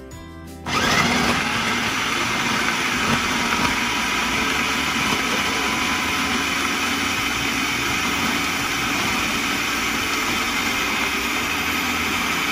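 Electric countertop food processor switched on about a second in and running steadily, its blade spinning through a wet mix of carrots, mushrooms, garlic and cilantro.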